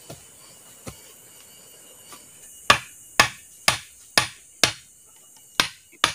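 A machete blade striking a wooden stake set in the ground, a series of sharp wooden knocks. Two light knocks come first, then seven hard strikes at about two a second starting nearly three seconds in.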